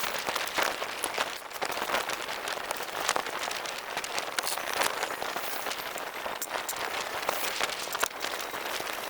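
Sheet of shrink-wrap plastic crinkling and crackling steadily as it is handled and folded over a tractor snowblower.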